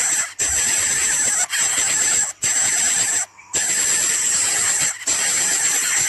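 Coucal nestlings begging with mouths agape: a harsh, continuous hissing buzz, broken by a handful of short pauses.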